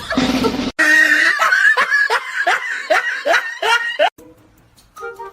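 Laughter: a run of about ten short pitched bursts, about three a second, stopping suddenly about four seconds in.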